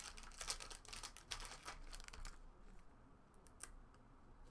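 Rustling and crinkling as a pack of old trading cards is handled, the cards being worked apart, for about two seconds, then quieter with a few faint clicks.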